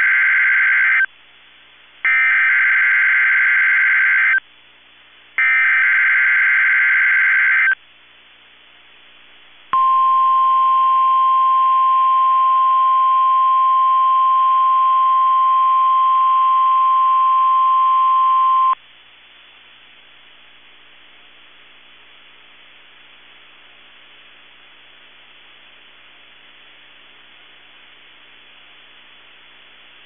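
NOAA Weather Radio station KEC65 sending an Emergency Alert System Required Weekly Test: three shrill, buzzy SAME digital header bursts, each about two seconds long, then the steady single-pitch weather-radio alert tone for about nine seconds. The tone cuts off suddenly into a faint hiss of dead air.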